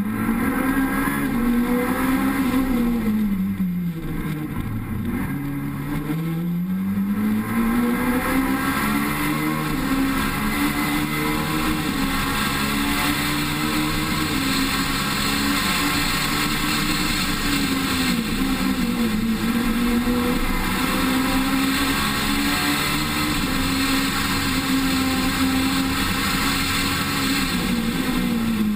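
Rally car engine driven hard on a special stage. Its pitch drops sharply twice a few seconds in as the car slows and downshifts, then climbs and holds high, with short dips near the middle and near the end at gear changes or lifts. A steady rush of wind and road noise runs under it, heard from a camera mounted outside on the car.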